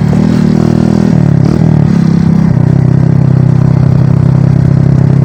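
Motorcycle engine running as the bike rides along, its pitch shifting up and down over the first two seconds or so, then holding steady.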